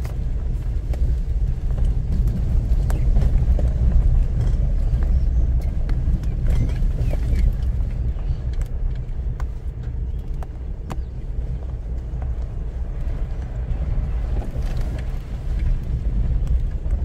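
Car driving along a road: a steady low rumble of engine and tyres, with scattered small ticks and knocks.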